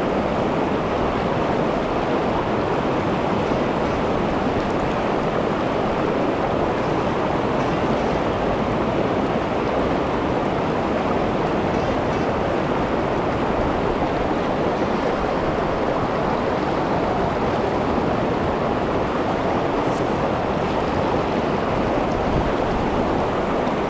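River water rushing steadily over a rocky riverbed, loud and unchanging.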